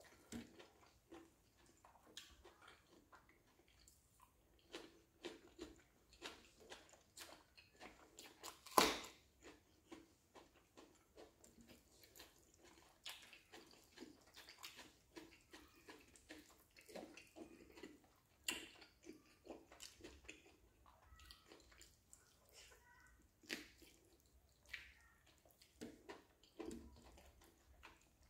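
Close-up eating sounds: whole roasted chicken being torn apart by hand and chewed, a faint, irregular string of wet clicks and smacks with one louder click about nine seconds in.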